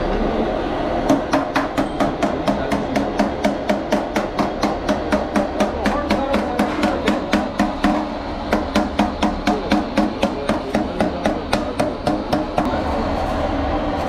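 A small hammer tapping quickly along the edge of a Nissan PKD411 truck radiator, about three taps a second, with a short break about eight seconds in. A steady low hum runs underneath.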